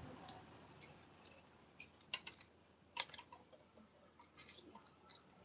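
Near silence, broken by a few faint, irregular clicks and taps. The clearest comes about three seconds in, and a small cluster falls near the end.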